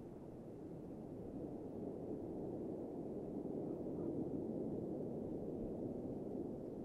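Distant jet engine noise from the Blue Angels' formation of six F/A-18 Super Hornets, a steady low rumble that grows gradually louder.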